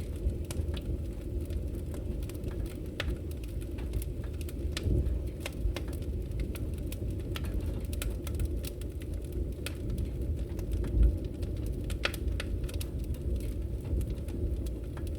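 Wood fire burning: a steady low rumble of flames with frequent irregular sharp crackles and pops, and one louder low thud about eleven seconds in.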